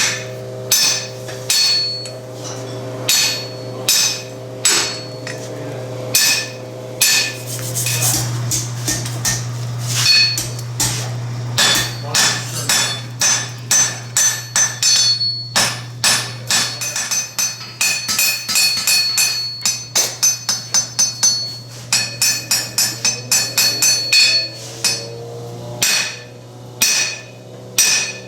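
Blacksmith's hammer striking steel on an anvil and its tooling, with each blow ringing. The blows come about once a second at first, then thicken into a fast run of about three a second in the second half before slowing again. A steady low hum runs underneath.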